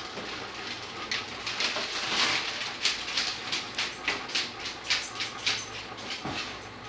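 A dog rummaging in a refrigerator: a run of quick rustling, crinkling noises, two or three a second, over a low steady hum.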